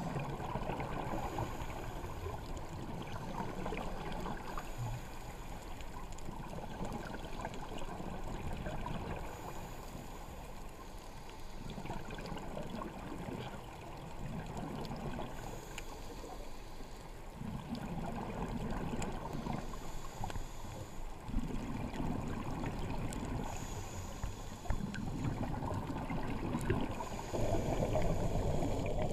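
A scuba diver's regulator breathing underwater, heard through an action camera's waterproof housing over a steady muffled water rush. A faint hiss comes every four to five seconds, and low bubbling bursts grow louder in the second half.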